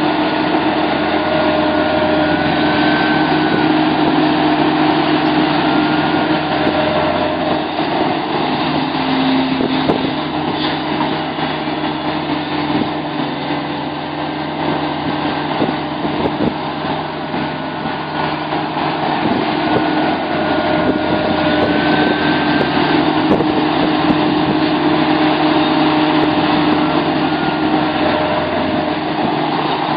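Sumitomo SH700LHD-5 excavator's diesel engine running steadily, with a whine that briefly rises in pitch now and then.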